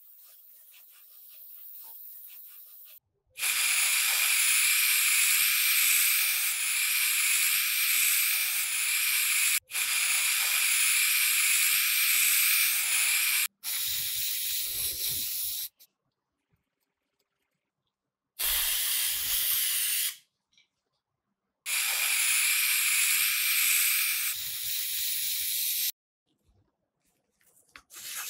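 Spray paint hissing in five bursts of a few seconds each, with short breaks between, as white primer is sprayed onto a small die-cast truck cab. Near the end there is faint wet rubbing of sandpaper on the primed metal.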